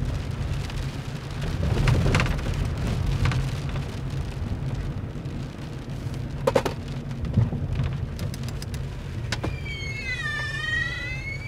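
Rain falling on a car, heard from inside the cabin over a steady low rumble, with a few light taps. Near the end comes a high whine that dips and then rises.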